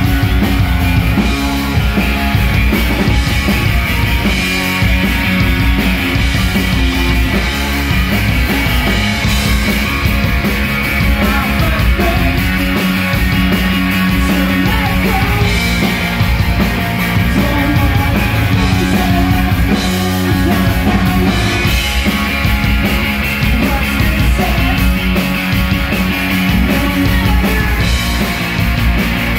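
Live rock band playing loud through the room: electric guitars, bass guitar and a drum kit, with a woman singing lead into the microphone.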